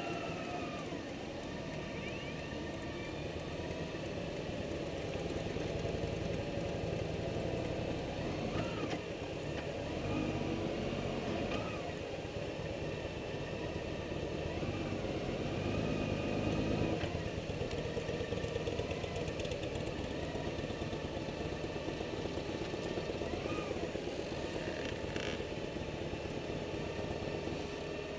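Motorcycle engine running at low speed, with steady road and wind noise. There are a few brief rises and falls in engine pitch about nine to twelve seconds in.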